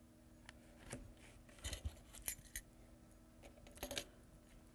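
Faint, scattered clicks and light taps of a metal flat clipboard clamp being handled and lined up against the clipboard board.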